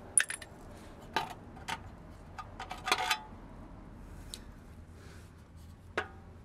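A series of sharp clicks and clacks from a rigid plastic air-intake panel and air-filter housing being handled and pulled off a small generator engine. The first is a brief metallic clink, and a quick flurry of clacks comes about three seconds in.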